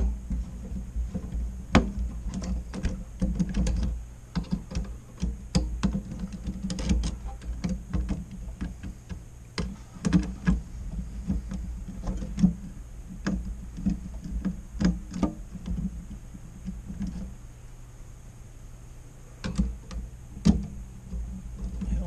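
Screwdriver working the heatsink screws over a desktop CPU cooler: irregular small clicks and taps of metal and plastic, with a steady low hum underneath.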